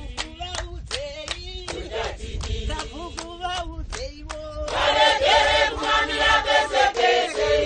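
Group singing with steady hand clapping; about five seconds in, more voices join and the singing gets louder.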